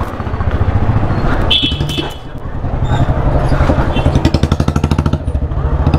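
Motorcycle engine running close by, its exhaust pulsing in an even rhythm; it dips briefly about two seconds in, then grows louder again.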